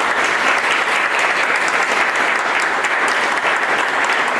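Applause: many people clapping, steady throughout.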